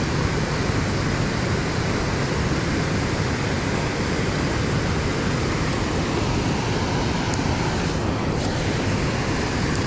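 Steady rush of fast-moving river water pouring over a concrete ledge and rocks.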